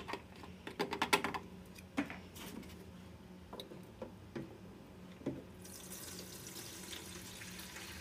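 Diesel fuel poured from a plastic jerrycan through a flexible spout into a diesel air heater's plastic fuel tank. A few plastic clicks and knocks come first, then a steady hiss of liquid filling the tank starts a little past halfway.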